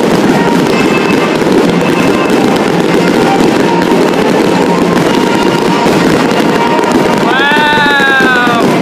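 A large aerial fireworks display: many shells bursting and crackling at once in a dense, continuous barrage. Near the end a pitched sliding whistle-like sound rises over it.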